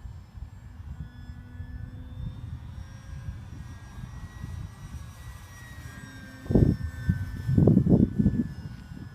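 A Parkzone Focke-Wulf 190 RC warbird in flight, its electric motor and propeller giving a faint whine that drifts slowly in pitch. Under it is a gusty low rumble on the microphone, with loud low buffets about six and a half seconds in and again around eight seconds.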